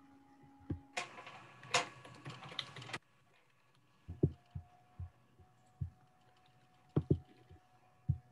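Computer keyboard typing: a dense two-second stretch of clatter about a second in, then scattered irregular taps and clicks.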